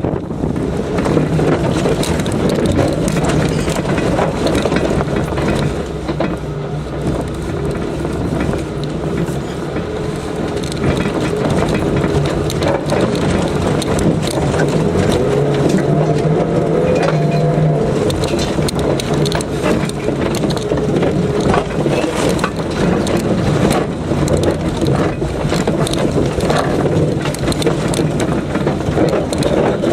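Off-road 4x4 engine running under load, its note shifting, with frequent clunks and rattles of the vehicle working over rough ground.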